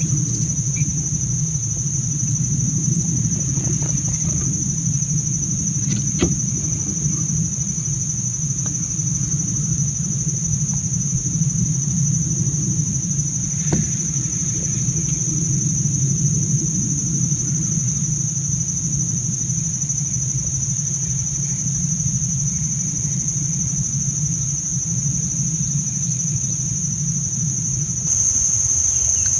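Steady high-pitched chorus of crickets or similar insects, one unbroken tone, over a constant low rumble.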